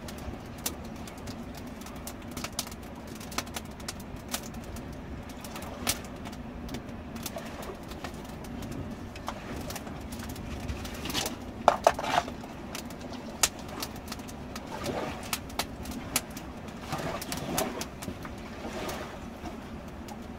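Wood campfire crackling with scattered pops over a steady low rush of river water, and a metal frying pan clinking against the fire stones about halfway through.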